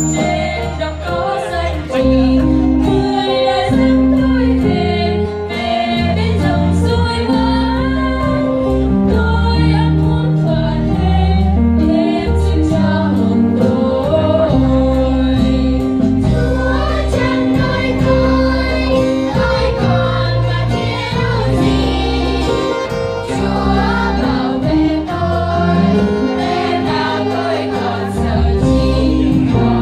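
Children's choir singing a hymn in unison over instrumental accompaniment with a steady bass line.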